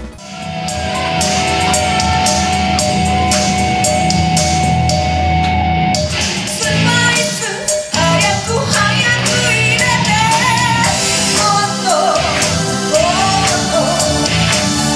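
Pop-rock song with drums, opening on a held note over a steady beat; the music fills out about six seconds in and a woman's singing voice comes in over it.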